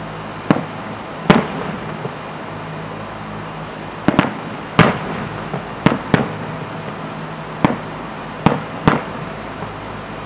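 Fireworks display: about ten sharp bangs of firework shells going off at irregular intervals, some in quick pairs, each trailing off in a brief echo. A steady low hum runs underneath.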